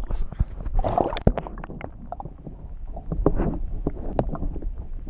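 Water splashing and sloshing at the side of a boat as a fish is held in the lake by hand and let go, with a string of short sharp knocks.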